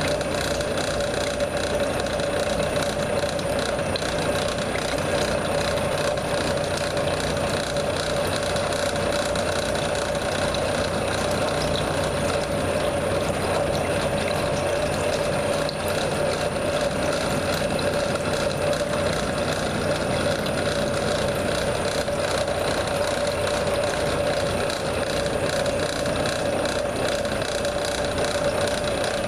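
CNC milling machine running steadily with a hob cutter cutting helical gear teeth: a constant whine over dense machining noise, unchanged throughout.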